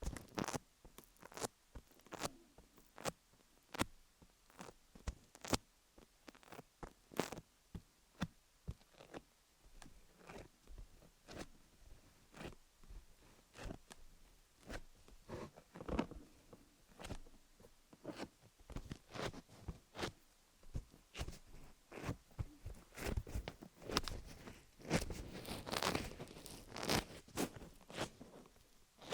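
Fingernails tapping and scratching over a rhinestone-studded dummy-head microphone: irregular clicks and short scrapes, a few a second, crowding into a denser run of scratching near the end.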